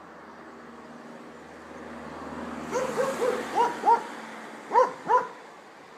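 A dog barking in two runs: about five quick barks starting a few seconds in, then two more near the end. A low background rumble builds up before the barking.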